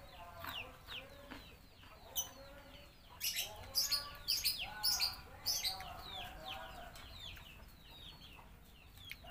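Chickens clucking, with many short, high, falling chirps repeating quickly. A run of sharp clicks about three to six seconds in stands out as the loudest sound.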